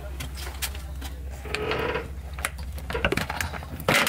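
Small electric diaphragm water pump running with a steady, fast, rattling buzz. About four seconds in, a sharp click from a switch on the boat's electrical panel, after which the buzz drops away.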